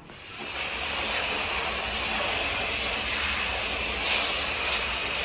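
Steady, loud hissing noise that swells in over the first second, with a thin, high steady tone running through it.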